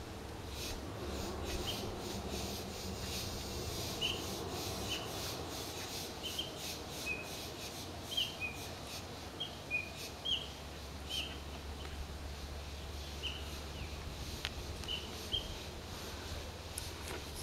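A bird calling in short, high chirps, about a dozen of them at uneven intervals, over a steady low background hum.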